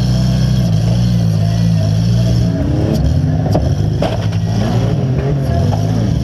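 Minivan engine running hard, heard from inside the stripped-out cabin: steady at first, then its pitch rising and falling as the throttle is worked. A few sharp knocks sound about three to four seconds in.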